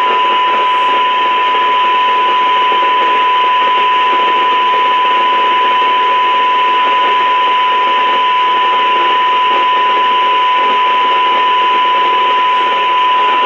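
Steady 1 kHz test tone under heavy static hiss: the repeater has keyed up and is repeating the test set's 1 kHz-modulated signal, injected at about −91 dBm through a 30 dB coupler, right at its receive threshold.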